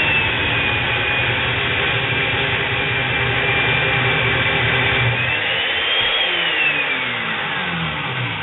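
Makita 7104L electric chain mortiser running, its chain cutting a plunge cut into timber with a steady high whine. About six seconds in the whine rises briefly, then falls steadily as the motor winds down near the end.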